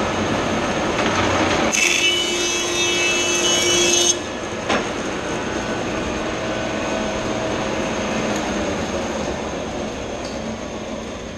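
Grizzly thickness planer running, with a board feeding through the cutterhead for about two seconds on a light finishing pass, the cut louder and higher-pitched with a whine over the running noise. A single knock follows just after, then the planer runs on empty.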